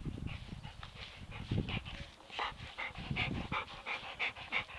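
Black Labrador retriever panting in quick, even breaths, about three a second later on, with a few low bumps in between.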